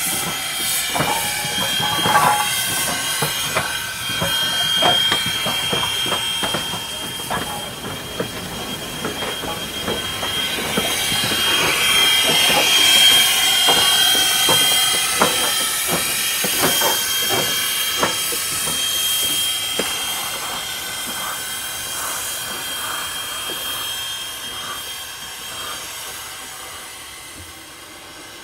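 Strasburg Rail Road #89, a 2-6-0 Mogul steam locomotive, moving slowly past with steam hissing, a thin steady high tone, and irregular clanks and clicks from its wheels and running gear. It grows louder to a peak about halfway through, then fades as it moves off.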